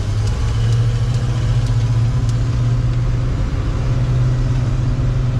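Motor vehicle engine running steadily with a low, even drone.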